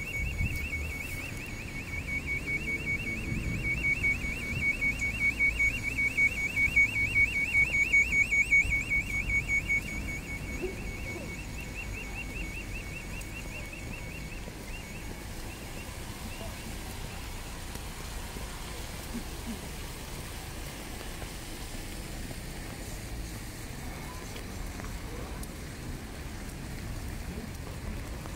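Rapid electronic beeping at one steady high pitch, several beeps a second, growing louder for the first few seconds and stopping about halfway through, over a steady low street rumble.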